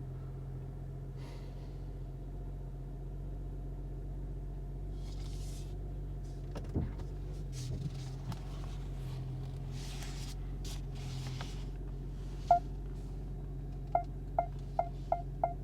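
BMW X3 M40i's turbocharged straight-six running steadily, heard from inside the cabin. From about 14 s in, a row of short, evenly spaced beeps at roughly three a second, typical of the parking sensors warning of a nearby obstacle.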